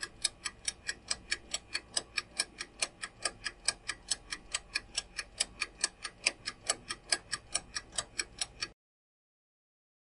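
Countdown timer sound effect: clock-like ticking at about four ticks a second, stopping abruptly about a second and a half before the end.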